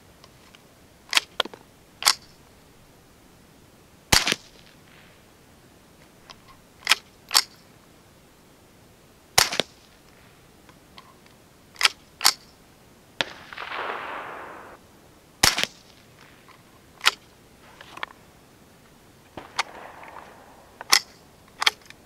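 CCI Quiet .22LR low-velocity rounds fired one at a time from a Ruger 10/22 semi-automatic rifle, a few light cracks several seconds apart. Between shots, sharp metallic clicks of the bolt being worked by hand, because the low-powered round does not cycle the semi-auto action. Two short bursts of hissy rustling come in the second half.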